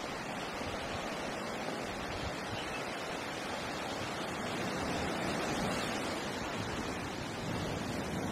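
Steady rushing of water churned up in a moving boat's wake.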